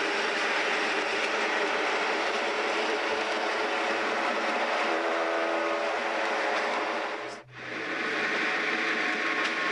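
Lamborghini LM002's 5.2-litre Countach V12 running under way, heard from inside the cabin as a steady drone mixed with road and wind rush. It drops out for a moment about seven seconds in.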